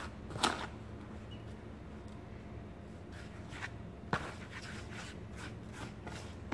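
Fingers raking and scraping through dry, granular powdered soap in a plastic tub: soft gritty rustling, with sharper scrapes about half a second in and twice around the four-second mark, over a low steady hum.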